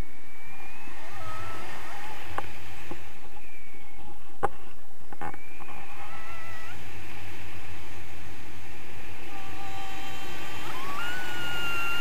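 Steady wind rushing over an action camera's microphone in flight under a tandem paraglider. Thin whistling tones slide up and down over it, a sharp click comes about four seconds in, and a higher tone rises near the end.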